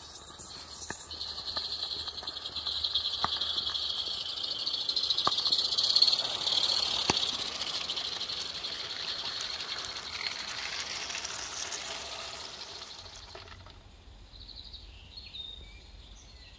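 A 16mm-scale live-steam garden-railway locomotive passing close, its steam exhaust a steady hiss that builds to its loudest about six seconds in, with a few sharp clicks from the wheels on the rail joints. The hiss then fades away as the train of small wagons rolls on.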